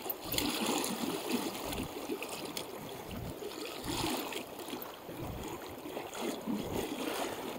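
Flowing river water, with irregular small rustles and knocks close to the microphone.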